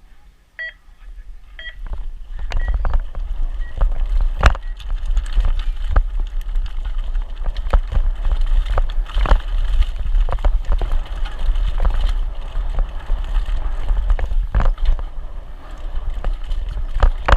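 A few electronic start-timer beeps about a second apart. Then a Santa Cruz Hightower mountain bike sets off down a rough downhill course: heavy wind rush on the microphone, with the rattle, clicks and knocks of the bike over the terrain.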